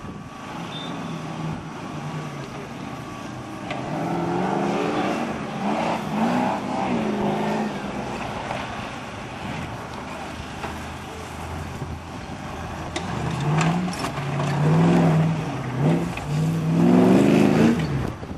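Modified off-road competition vehicle's engine revving hard and easing off over and over as it drives a dirt course. The revs are loudest in the last few seconds.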